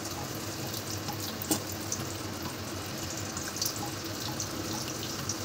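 Fish-roe pakoras sizzling in hot oil in a kadhai: a steady hiss with small crackles, and one light knock about a second and a half in.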